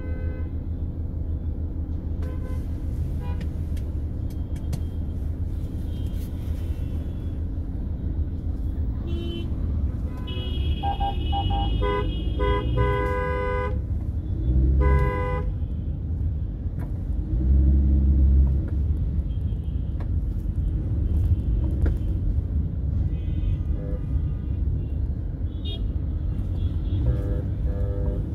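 Road traffic with a steady low rumble and car horns honking repeatedly, several at once and heaviest a third to half of the way in. A couple of loud low thumps come about two-thirds of the way in.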